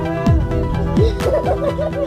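Background music with an electronic beat: steady held chords, sharp drum hits and falling bass sweeps, with a wavering lead line from about a second in.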